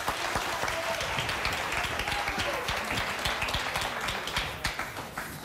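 Studio audience applauding, a dense patter of many hands clapping that tapers off near the end.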